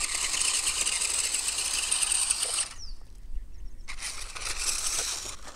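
Electric motor and gearbox of a Mirana Duster 4x4 RC car whining under throttle as it tries to climb a dirt mound. It runs for nearly three seconds, stops for about a second, then runs again.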